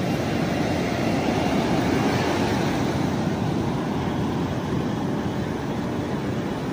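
Steady rushing noise of sea surf, with wind buffeting the phone's microphone.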